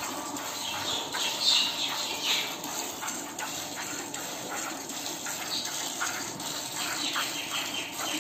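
Cow being milked by hand: jets of milk squirting into a plastic bucket in quick, repeated hissing strokes.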